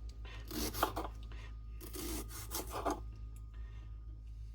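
Knife cutting through vegetables on a cutting board: three or four separate strokes roughly a second apart.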